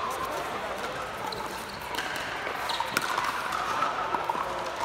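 Pickleball paddle striking the plastic ball: a sharp pop about three seconds in, over the steady background noise of the courts.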